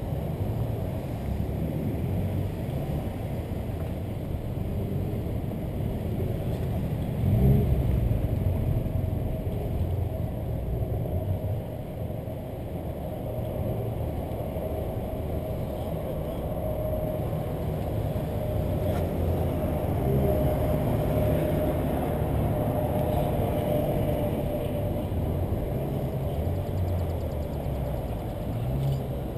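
Car driving slowly, a steady low rumble of engine and road noise.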